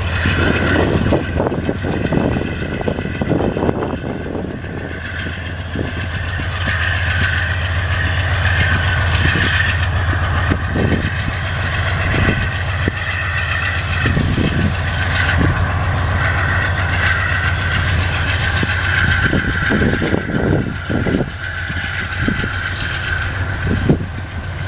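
Pair of GE Dash-9 diesel-electric locomotives working hard as they pull a loaded iron-ore train away: a steady low engine drone with a high whine over it. Wheels knock now and then as the loaded ore wagons roll over the track.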